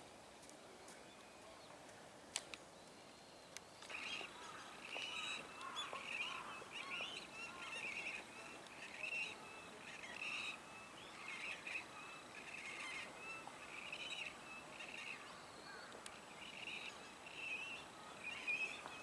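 Birds calling over and over, a dense run of short calls that starts about four seconds in and keeps going, after a quiet start with a single sharp click.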